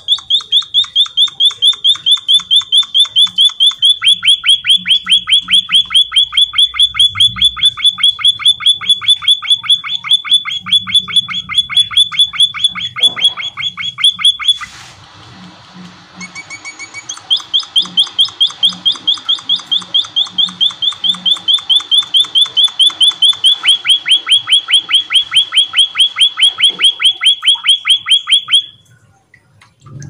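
White-capped munia (emprit kaji) singing in full voice: one sharp chirping note repeated fast, about six times a second, in long unbroken runs. About halfway through it stops for roughly two seconds, with a click and a brief rustle, then starts up again and carries on until near the end.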